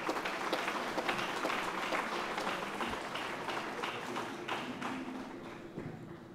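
Audience applauding, the clapping gradually dying away near the end.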